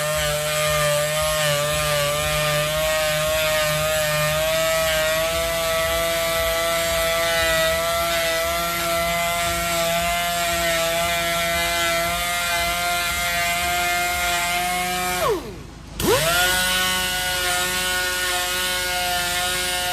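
Handheld power sander running with a steady high whine while sanding a damaged alloy wheel. About fifteen seconds in it is switched off, winding down briefly, then started again and spins back up to speed.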